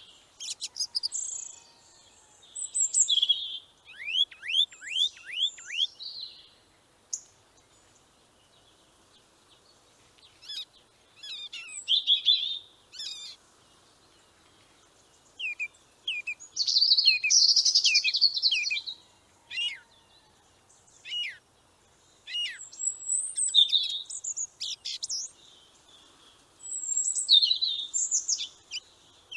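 Songbird singing: high, quick chirps and trills in phrases of a second or two, separated by pauses of a few seconds.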